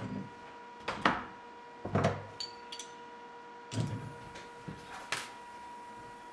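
Welded steel mount being handled on a workbench: a welding ground clamp is unclipped and a pipe wrench clamped on, giving about five metal knocks and clanks roughly a second apart, with a brief faint ring of steel between the second and third. A steady high whine runs underneath.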